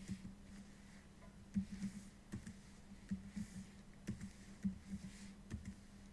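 Twisty puzzle cube being turned by hand: irregular plastic clicks and clacks as the faces snap round, with short sliding rasps between them.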